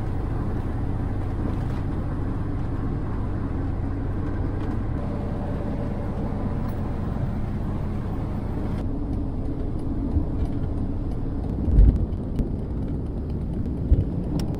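Steady road and engine noise inside a van's cab while driving at highway speed. The higher hiss drops off abruptly a little past halfway. A few low thumps come near the end.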